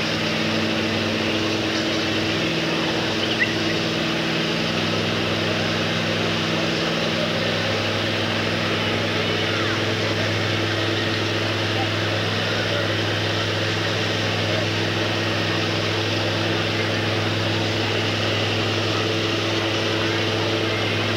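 Steady engine drone with a constant hiss behind it; its low hum settles after the first few seconds and then holds even.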